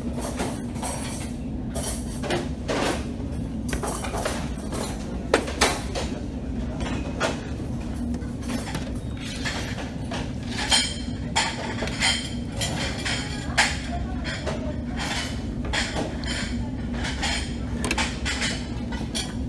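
Metal serving spoons and tongs clinking and scraping against stainless-steel buffet trays and a plate as food is dished up: a scatter of sharp clinks, the loudest about five seconds in and again around eleven to fourteen seconds in. Behind them run a steady low hum and background chatter.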